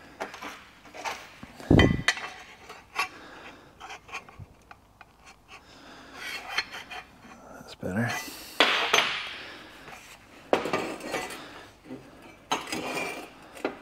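Stainless steel exhaust tubing and pipe bends clinking and knocking as they are handled, with one heavy thump about two seconds in and some scraping of metal on metal later on.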